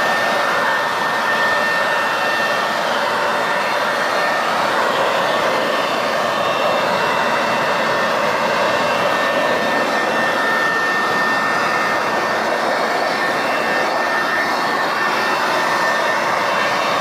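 Steady, loud rushing of a motor-driven air blower running at a constant speed, with a thin high whine over it.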